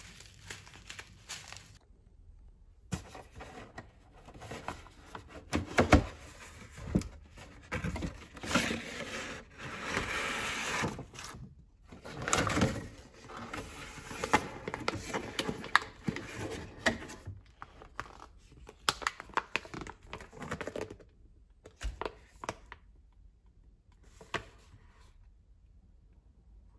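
Packaging being handled: paper and plastic sachets and a paper bag rustling and crinkling, with scattered knocks and clicks of items set down. The sharpest knock comes about six seconds in.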